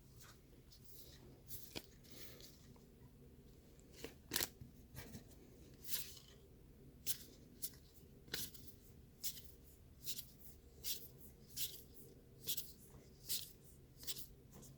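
Baseball trading cards being flipped through one at a time in the hand, a soft flick or snap as each card is slid off the stack. The flicks come sparsely at first, then about one to two a second from about four seconds in.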